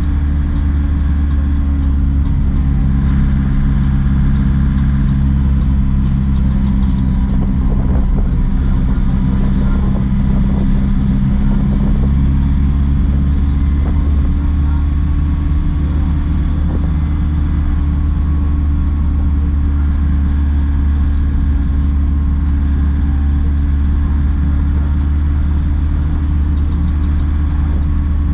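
Truck engine running steadily at low speed in slow traffic, a continuous low rumble whose tone shifts about twelve seconds in.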